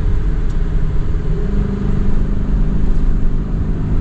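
Car engine and road rumble heard from inside the cabin while driving, with a steady engine drone that comes up more clearly about a second and a half in.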